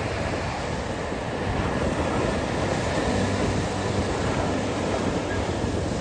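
Gentle surf breaking and washing up onto a sandy beach: a steady rush of waves.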